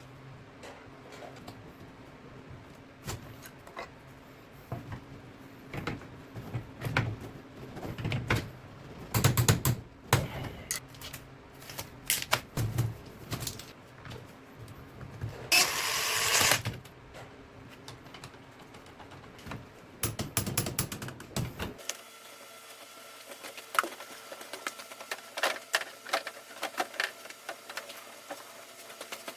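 Hand work with tools and parts: irregular clicks, taps and knocks, busiest in the middle, with a hiss of about a second just past halfway.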